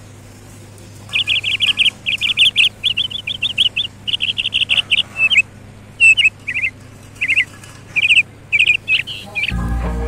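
Alexandrine parakeet calling in quick runs of sharp, high chirps, starting about a second in, then breaking into shorter, spaced bursts in the second half. Music comes in just before the end.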